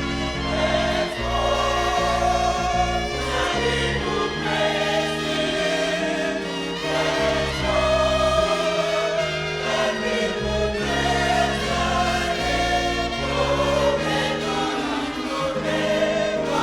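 Gospel choir singing with instrumental backing: held, wavering voices over a moving bass line.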